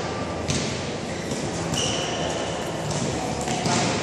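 Futsal play on a wooden indoor court: a couple of ball kicks and sneakers squeaking on the floor, with a short high squeak about two seconds in, echoing in a large hall.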